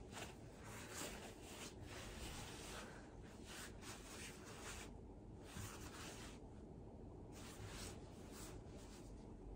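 Near silence: room tone with faint, soft rustling.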